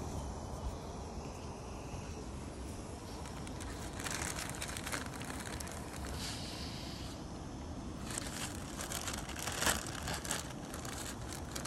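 Clear plastic zip bag of ground coffee crinkling and rustling in several short bursts, starting about four seconds in, as coffee is scooped out of it with a plastic spoon into a paper filter. A low steady rumble sits underneath.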